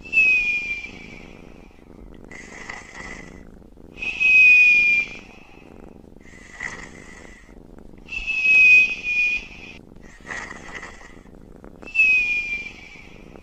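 A sleeping man snore-breathing in a slow, even rhythm, one breath about every two seconds. A quieter raspy breath alternates with a louder one carrying a high whistle that slides slightly down in pitch; there are four whistling breaths.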